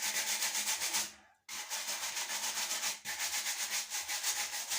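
A brush scrubbing the outer surface of an electric shower head with quick back-and-forth strokes under pressure. It stops briefly about a second in, then carries on.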